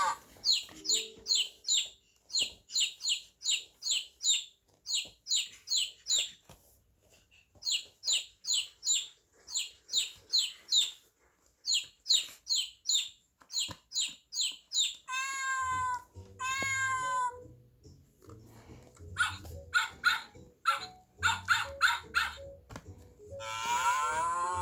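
Recorded animal sounds played one after another: a long run of quick, high chirps in groups of about four a second, then two longer calls about two-thirds of the way through, then more calls near the end.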